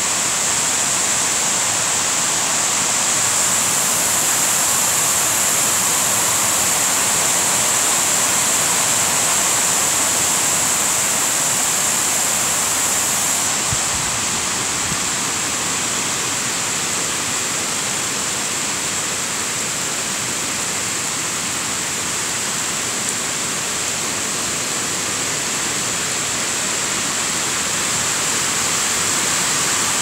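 Rain falling steadily on trees and leafy undergrowth, a dense, even hiss.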